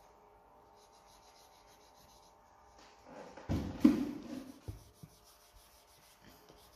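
Faint, quick scratching of a colouring pencil on paper, then about three and a half seconds in a louder rubbing with a bump, as the forearm slides across the paper and table.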